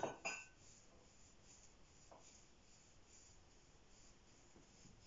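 Near silence: room tone, after a short faint sound in the first half-second.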